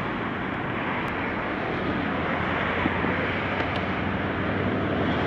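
Steady road-traffic noise, a continuous low rumble and hiss from vehicles passing on a city bridge.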